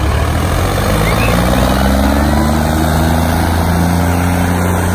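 Diesel tractor engines of a John Deere 5310 and a modified Hindustan 60 running at full throttle under heavy load as they pull against each other, the engine note rising slowly. The John Deere is blowing black smoke as it labours.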